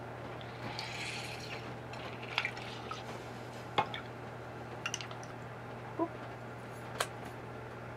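Lemon juice streaming and dripping from a handheld citrus press into a small bowl as lemon halves are squeezed. Several sharp clicks and knocks from the press and lemon halves are spread through it, over a faint steady hum.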